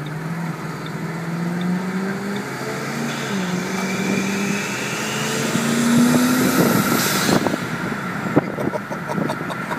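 Turbocharged 4.6-litre V8 of a 2006 Ford Mustang GT accelerating hard. The engine note climbs, drops at a gear change about three seconds in, and climbs again with a faint rising turbo whine above it. Near seven seconds the note gives way to a rush of noise.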